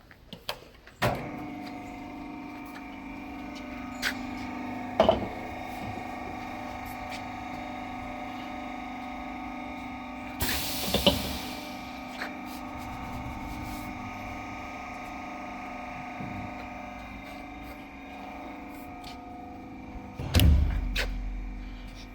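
Compressor cutting machine starting up about a second in and running with a steady hum of several constant tones. A few sharp knocks, a short hiss about halfway, and a heavy thump with a rumble near the end.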